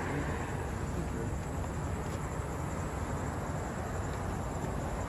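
Steady low rumble of outdoor street noise, with no distinct events.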